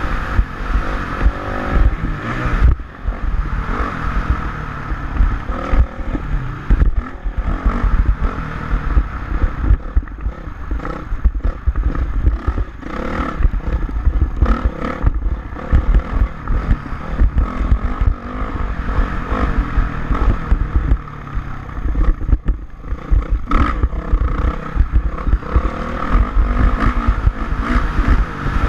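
2006 Honda CRF450R, a single-cylinder four-stroke motocross bike, running and revving on the track, with constant wind buffeting and clattering over the ride.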